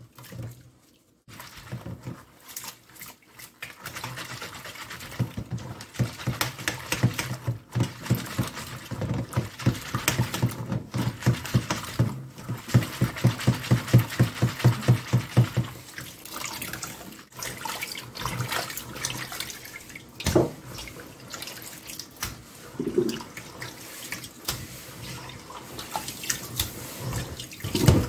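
Raw oysters being washed in a plastic colander dunked and swished in a stainless steel basin of water: rhythmic sloshing and splashing, loudest and most regular through the middle, then looser splashing as gloved hands stir the water.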